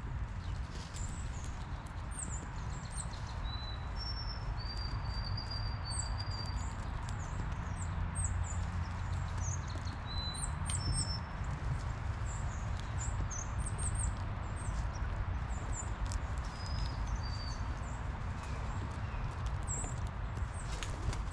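Small songbirds calling over and over: many sharp, high chips and a few short whistled notes, heard over the steady hiss of rain.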